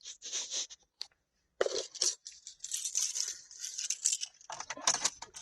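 Irregular scraping and rustling of a car key and keyring being handled and worked into the ignition, with short gaps between the bursts.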